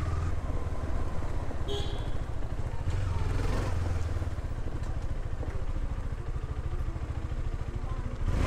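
KTM Duke 390's single-cylinder engine running at low revs as the bike creeps along at walking pace, a steady low engine throb.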